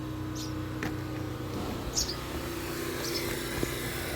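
A few short, high peeps from baby birds, spaced a second or so apart, over a steady low mechanical hum.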